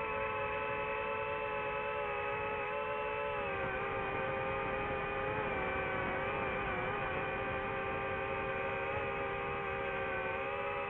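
DJI FPV drone's motors and propellers whining steadily in flight, as heard on board, the pitch dipping a little a few seconds in and wavering briefly before settling.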